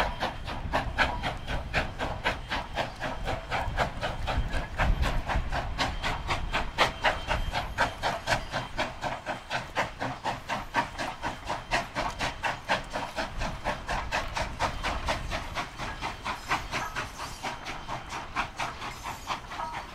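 Strasburg Rail Road No. 89, a 2-6-0 steam locomotive, working hard with a rapid, even beat of exhaust chuffs that fades as it pulls away.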